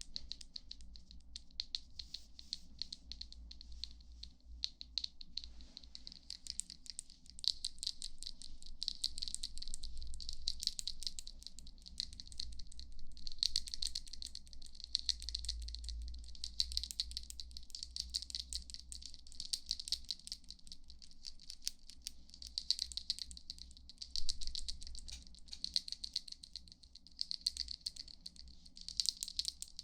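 Close-miked ASMR trigger sounds: a dense, fine crackling rattle that swells and fades in waves.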